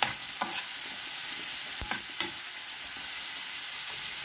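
Food sizzling as it fries in a pan, a steady hiss with a few sharp clicks.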